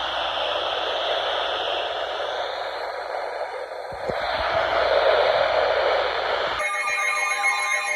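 Steady radio static hiss, then about six and a half seconds in, electronic alert tones start abruptly: several steady pitches with a warbling one over them. This is the alert signal that introduces a severe thunderstorm warning broadcast.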